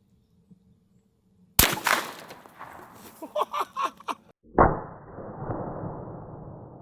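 A single 10mm pistol shot about one and a half seconds in, followed by a few seconds of scattered noise and pitched sounds. About three seconds after the shot comes a second heavy boom that fades slowly.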